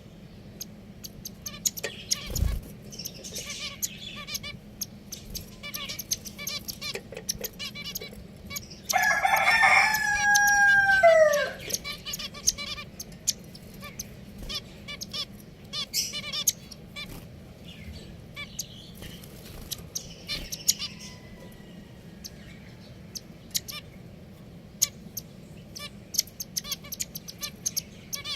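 Pet finches chirping softly among many light clicks and taps. About nine seconds in, a rooster crows once, a loud drawn-out call about three seconds long that falls in pitch at its end.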